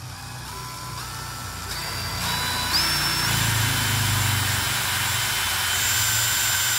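DeWalt DCD709 cordless brushless hammer drill running free with an empty chuck. Its motor whine climbs in pitch in steps as the variable-speed trigger is squeezed further, then holds steady at top speed for about three seconds. Right at the end it starts to wind down as the trigger is let go.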